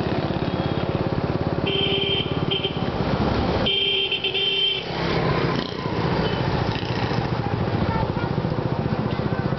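Small motorbike engine running close by with a rapid, even pulse, and two short horn beeps about two and four seconds in.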